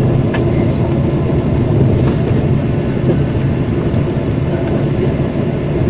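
Cabin noise of a Boeing 737-800 rolling out on the runway after touchdown: steady jet-engine noise and runway rumble, with a few light rattles.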